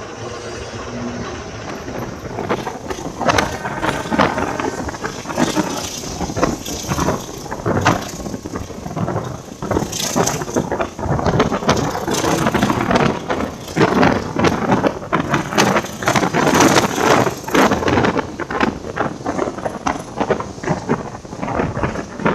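Passenger train running, heard from the open vestibule between carriages: steel wheels knocking and clattering on the rails, with the car body rattling and some squeal, building up in the first few seconds.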